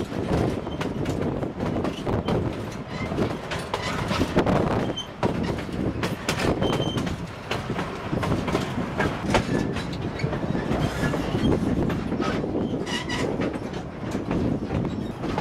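Narrow-gauge steam train running, heard from an open coach: a steady rumble of the cars under irregular clicking of the wheels over rail joints. A few brief, faint wheel squeals come as the train rounds a curve.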